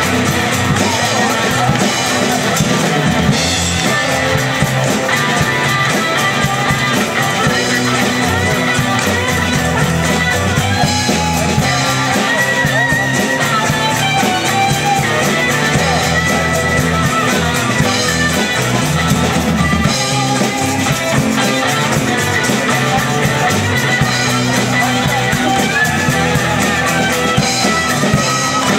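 Live band playing a rock song: women singing into microphones over acoustic guitar, electric bass, keyboard and drums.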